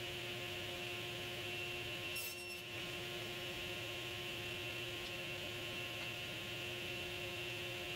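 Table saw running at speed with a steady hum, during cross-cutting of walnut. About two seconds in there is a short higher hiss.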